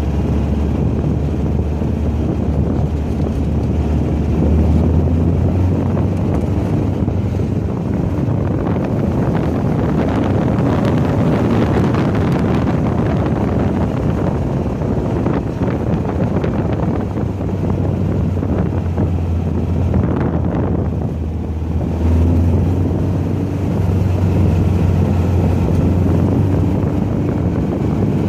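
Volkswagen race car engine running hard around a track, heard onboard with wind rushing over the microphone. About three quarters of the way through the engine eases off briefly, then picks up again with a rising note.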